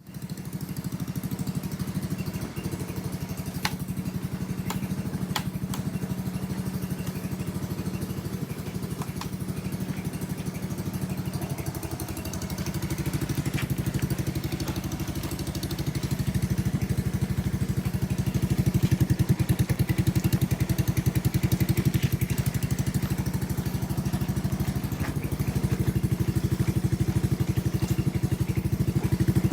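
Motorcycle engine idling steadily with an even beat, picking up a little in speed and loudness about halfway through. It runs without any abnormal noise.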